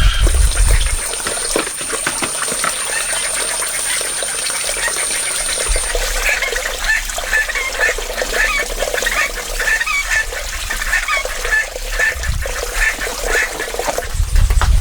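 Short bird calls repeated over and over, starting about six seconds in and lasting some seven seconds, over a steady background hiss. A thin, high steady whine runs through the first part and stops about six seconds in.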